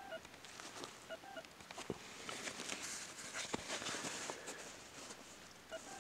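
Fabric of a Flektarn poncho half shelter rustling as a hand works its pocket flap and button, with a few light clicks. The rustle swells in the middle and fades toward the end.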